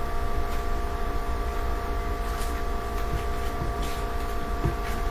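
Steady background hum with two faint, steady whining tones held throughout, and a few faint clicks.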